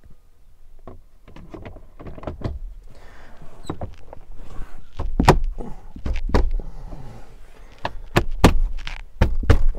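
Plastic dash trim panel being pressed into place by hand, with a series of knocks and clip pops as its retaining clips snap in. The snaps grow louder and closer together in the second half.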